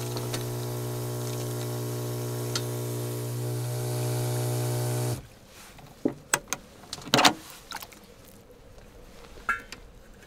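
Small electric water pump humming steadily as water runs from a tap into a steel saucepan, then shutting off abruptly about five seconds in. Afterwards there are a few sharp clicks and knocks as the flow dwindles to a dribble.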